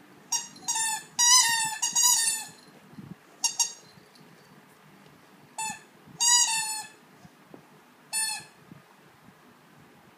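A dog's squeaky toy being bitten and squeezed: about eight high squeaks in uneven bursts, some short and some drawn out for about half a second.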